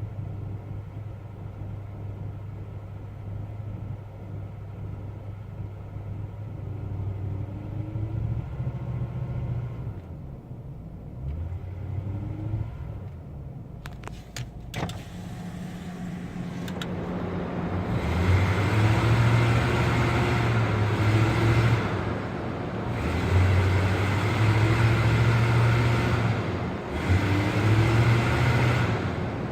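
Car engine running with a misfire, which the owner is pretty sure comes from a weak fuel pump. It runs steadily at first, a few sharp clicks come about halfway, then it gets much louder in three long surges with rising pitch, as when revved or accelerated.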